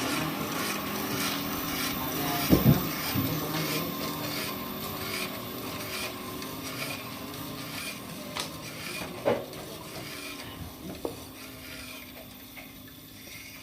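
Sawmill machinery running with a steady hum and hiss, with a few sharp knocks, the loudest about two and a half seconds in; the sound slowly gets quieter toward the end.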